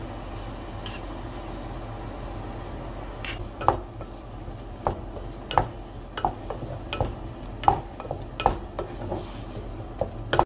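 Wooden spatula stirring ground beef, grated onion and minced garlic in a nonstick saucepan. From about three seconds in it knocks and scrapes against the pan irregularly, roughly one or two strokes a second, over quiet frying.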